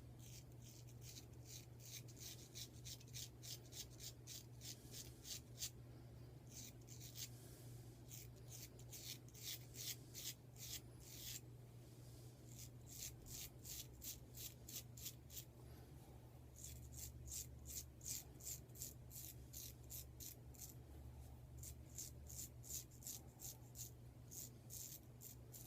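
Straight razor scraping stubble off the face in short, quick strokes, several a second, in runs broken by brief pauses: a second pass over a lather-less shaving cream.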